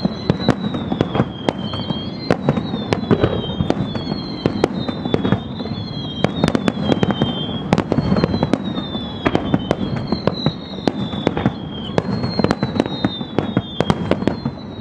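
Aerial firework shells bursting in quick succession: a dense string of sharp bangs, several a second, over a low rumble. A high, wavering whistle-like tone glides up and down underneath.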